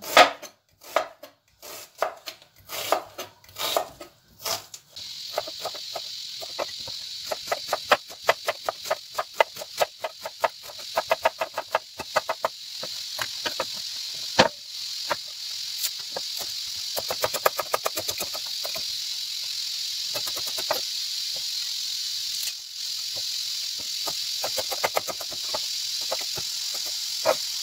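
Kitchen knife slicing red onion and chopping parsley on a plastic cutting board: quick knife strikes on the board, spaced out at first, then in fast runs. A steady high hiss runs underneath from about five seconds in.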